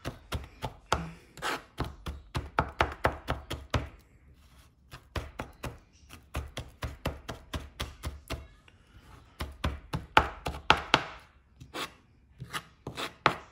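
Chef's knife mincing garlic on a plastic cutting board: quick runs of sharp blade taps, several a second, with a brief pause about four seconds in.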